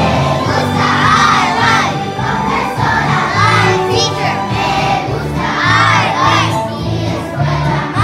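A group of schoolchildren singing together in unison, with steady low accompaniment notes underneath.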